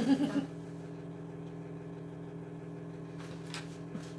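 Steady machine hum made of several level tones. A short vocal sound comes right at the start, and a faint brief rustle about three seconds in.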